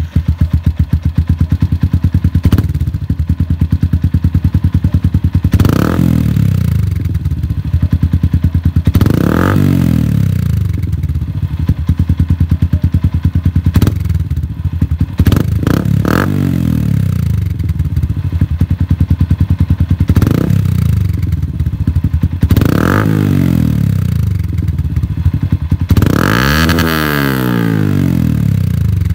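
Yamaha Sniper 150's single-cylinder four-stroke engine idling through an aftermarket Akrapovic canister muffler. It is blipped to higher revs several times, each rev rising and falling back to idle. The longest and highest rev comes near the end.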